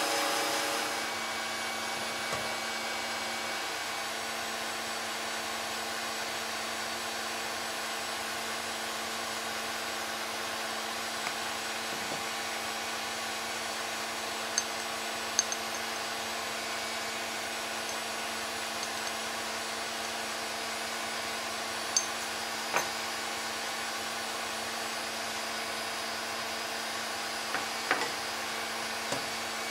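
Electric kitchen mixer running steadily at one speed, settling a little lower about a second in, with a few light clicks.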